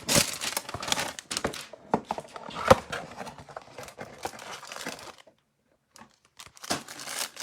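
Plastic and cardboard packaging of a trading-card hanger box being torn open and crinkled. The crackling pauses about five seconds in and starts again a second later.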